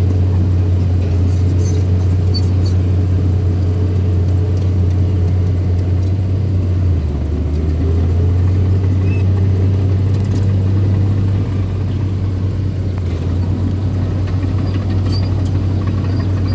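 Small bulldozer's engine running steadily with a deep, even hum; the pitch dips briefly about seven seconds in, then comes back up.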